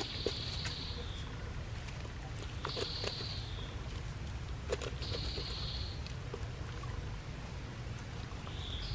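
Knife slitting open the belly of a large catfish, with soft clicks from the blade and handling over a low steady rumble. A high buzzy animal call repeats four times, every few seconds.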